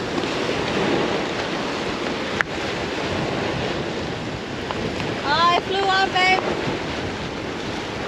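Surf washing against a rock jetty, with wind buffeting the microphone. About five seconds in, a short run of four or five rising, voice-like calls cuts through.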